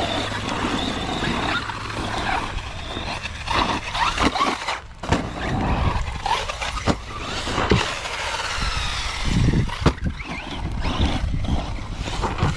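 Traxxas Sledge RC monster truck's brushless motor whining up and down as it is driven and jumped, with tyre and chassis noise and several sharp knocks.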